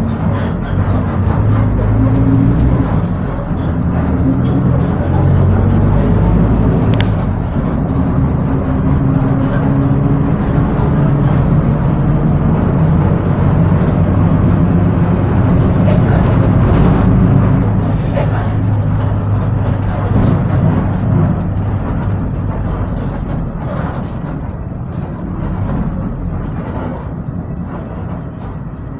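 Volksbus 17-230 OD city bus engine running under load, heard from inside the bus, loudest through the middle and easing off near the end. Scattered short clicks and rattles sound near the end.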